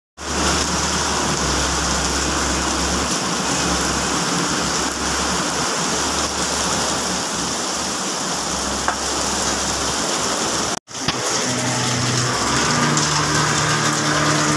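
Heavy rain pouring down onto a flooded street, a loud even hiss. It drops out for an instant near the end and comes back with a low steady hum underneath.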